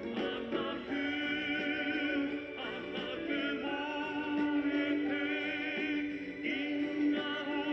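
Anime ending song played back from a cassette tape through an Aiwa boombox's speakers: voices singing with vibrato, with a children's choir, over instrumental accompaniment.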